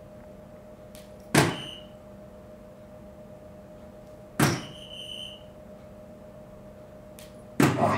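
Soft-tip darts striking a DARTSLIVE electronic dartboard: two sharp hits about three seconds apart, each followed by a short electronic tone from the machine. A third, louder hit comes near the end.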